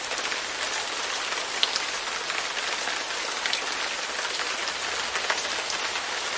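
Light rain falling steadily on a window pane: a continuous hiss with scattered sharper ticks of single drops striking the glass.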